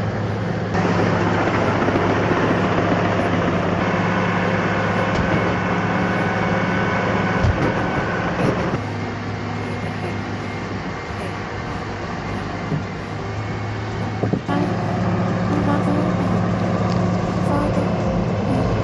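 Heavy machinery engine running steadily with a constant low hum. The sound changes abruptly about 1, 9 and 14.5 seconds in, as one machine's sound gives way to another's.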